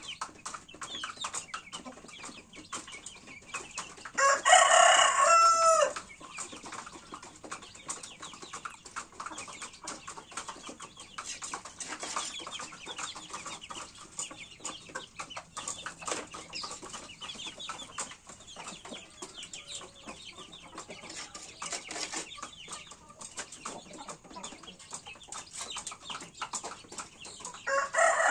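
Roosters: one crows a long call about four seconds in, falling in pitch at its end, and another crow starts near the end. In between, the chickens cluck softly.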